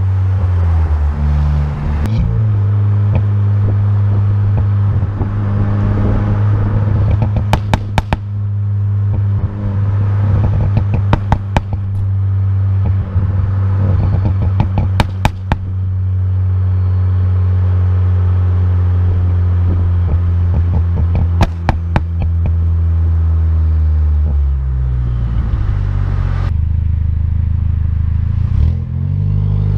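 Fiesta ST's turbocharged 1.6-litre EcoBoost four-cylinder, breathing through a catless downpipe and 3-inch catback, running steadily with repeated clusters of sharp exhaust pops and crackles from a crackle-and-pop tune. Near the end the engine note drops and wavers as the car slows.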